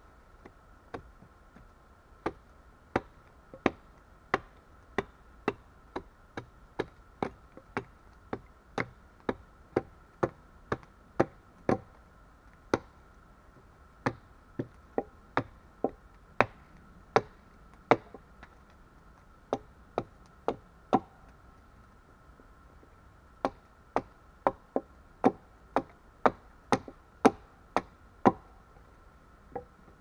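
Hatchet chopping into a log section: a steady run of sharp blows, about one and a half per second, broken by a few short pauses in the second half.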